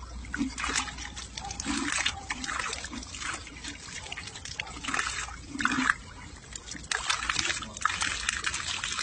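Water pouring and splashing from a small clay-pot garden fountain spout while a dog bites and laps at the stream, the splashing coming in uneven surges.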